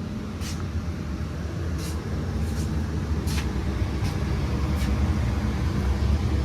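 Lennox furnace blower running with a steady low hum that grows gradually louder, with a few short faint hissy ticks over it.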